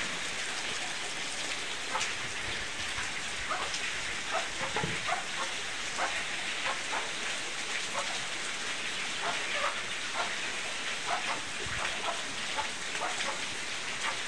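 Steady rain hissing, with scattered light ticks through it.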